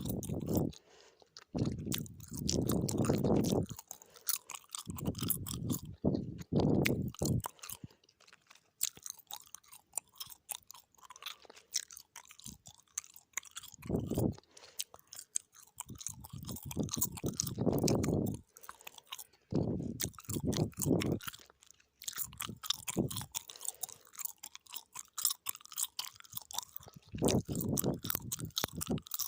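Gum being chewed close to the microphone: wet, sticky smacking and clicking mouth sounds in an uneven rhythm, with heavier, fuller stretches every few seconds.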